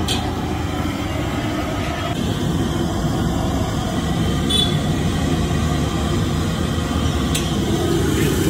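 Medu vadas deep-frying in a large kadai of hot oil: a steady sizzle under a low rumble. A slotted steel ladle gives a few light clinks, about halfway through and again near the end.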